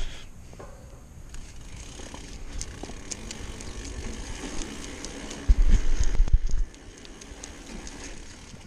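A 2014 Trance Advanced SX mountain bike being ridden on pavement: tyre noise with small clicks and rattles from the bike. About two-thirds of the way in there is a loud low rumble lasting about a second.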